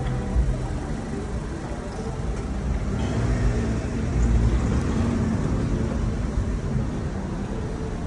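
Street traffic: car engines running in slow traffic along a cobbled street, a steady low rumble.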